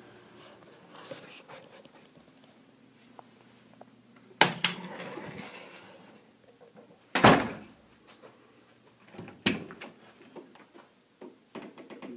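Two loud sudden thuds, about four and a half and seven seconds in, the first followed by a brief hiss, then a couple of lighter knocks a little after nine seconds.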